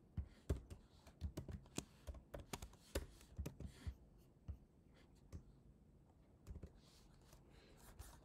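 Soft keystrokes on a computer keyboard typing a line of code: quick, irregular clicks, thick in the first half and sparser later.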